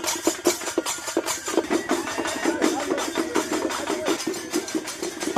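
Drums beaten fast and continuously in a dense, rapid rhythm of sharp strikes.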